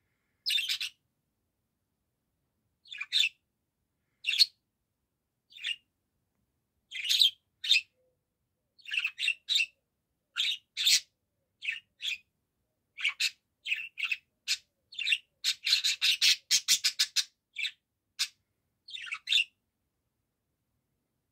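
Budgerigar chirping: short high calls one after another with brief pauses, and a fast run of rapid chirps about sixteen seconds in.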